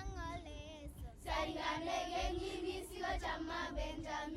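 A group of children singing together, holding notes.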